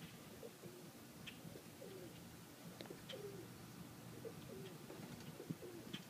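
Birmingham Roller pigeons cooing faintly: a run of short, low coos that bend in pitch, one after another, with a few faint ticks between them.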